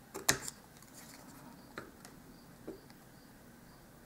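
A few small clicks and crackles of heavy cardstock being folded and pressed along its crease lines with a metal tool: one sharp click about a quarter second in, then fainter ones near two seconds and near three seconds.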